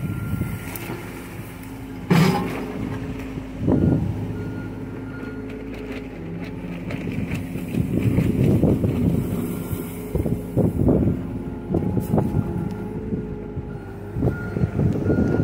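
John Deere compact excavator's diesel engine running under load as the machine tracks and pushes dirt with its front blade. There are a couple of loud clanks in the first few seconds, and a warning beeper sounds at times.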